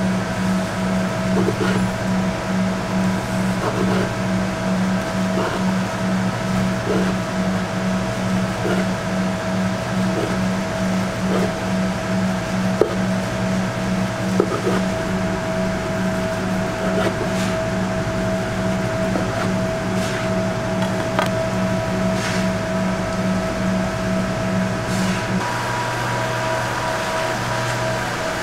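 Steady kitchen machine hum with a fast even pulse, over soft knocks of a knife slicing through stacked fried tofu sheets onto a wooden cutting board about every second and a half. The hum changes pitch near the end.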